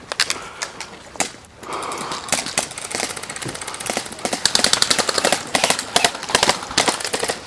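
Airsoft guns firing: scattered single shots at first, then quick strings of shots from about four seconds in.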